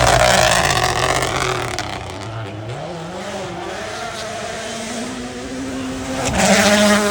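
A rally car's engine at full throttle passing at speed, its pitch dropping as it goes by. The note then rises again as it accelerates away, with a second loud burst of revs near the end.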